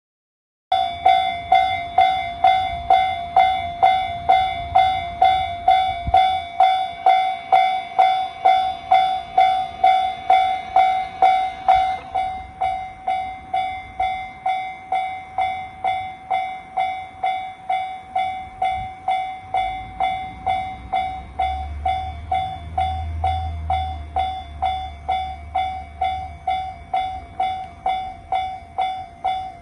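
Japanese railway level-crossing warning bell ringing at about two strikes a second, starting just after the start and stepping down in loudness partway through. About two-thirds of the way through a low rumble rises under it, as a train passes.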